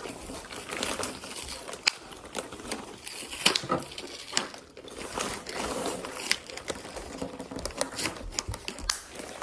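Food packaging crinkling and rustling as it is handled, with many scattered sharp clicks and crackles.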